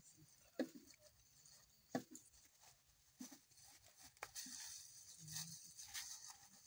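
Near silence: a few faint taps and soft rustles over a faint steady hiss.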